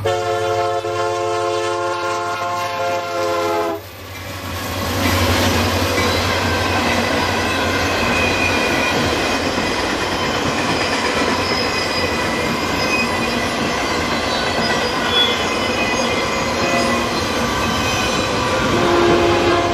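Diesel freight locomotive's multi-chime air horn sounding a held chord that cuts off sharply about four seconds in. Then the steady rumble and clatter of a long autorack freight train rolling past close by.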